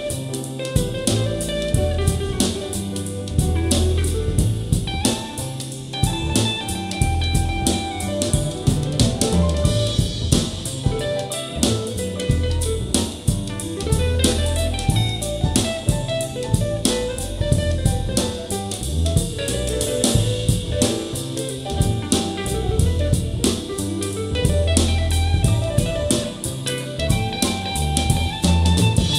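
Instrumental music with drum kit, snare and guitar, played back through in-ear monitors for a sound-demo recording.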